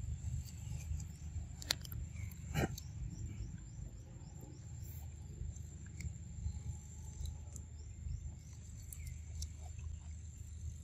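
Outdoor ambience: a steady high-pitched insect drone over a low rumble, with faint scattered chirps and two sharp clicks about two seconds in.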